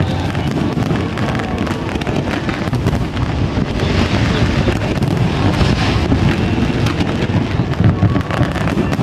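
Aerial fireworks going off in a dense, continuous barrage: overlapping booms and crackling pops with no single standout blast.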